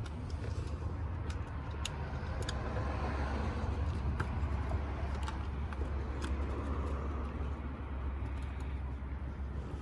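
A car running nearby: a steady low rumble that swells in the middle and eases off again, with a few faint clicks.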